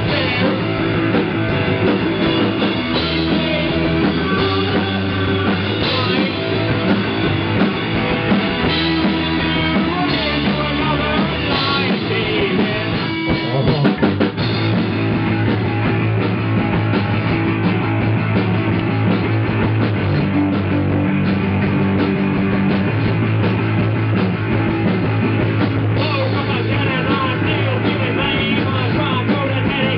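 Live rock band playing: electric guitar, bass guitar and drum kit with a singer, poorly recorded.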